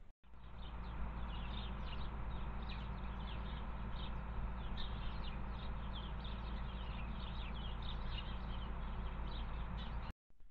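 Small birds chirping in many quick, short calls, over a steady hiss and low hum.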